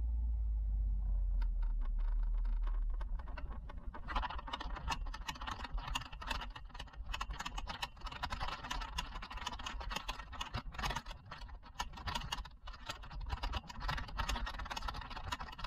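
A Vespa scooter towing a small aluminium-and-foam teardrop trailer over dry pasture: a steady low hum for the first few seconds, then dense crackling and rattling as the trailer rolls over the rough ground, with the scooter's engine running low underneath.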